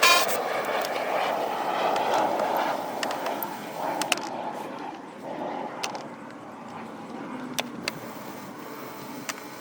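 Hand tools working a bolt and push clips out of a plastic interior trim panel: a rough rasping noise for the first few seconds that fades away, then scattered sharp clicks.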